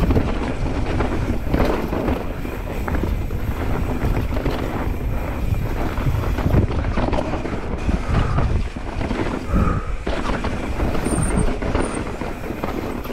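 Mountain bike ridden fast down a dirt trail: wind buffeting the microphone over tyres rolling on dirt, with frequent short knocks and rattles from the bike over bumps.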